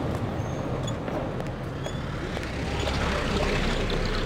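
Car driving past over a steady low street rumble, growing louder toward the end as it comes close.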